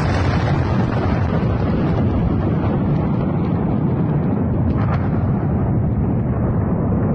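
Massive depot explosion: a continuous deep rumble from the blast and rising fireball. A sharper crack or secondary blast comes about five seconds in.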